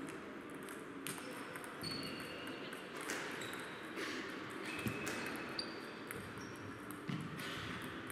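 Table tennis balls clicking off bats and tables at several matches in a large sports hall: irregular sharp clicks with the hall's echo. A few short high squeaks sound among them.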